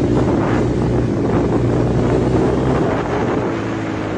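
ATV engine running at a steady, high pitch while riding, with wind buffeting the microphone.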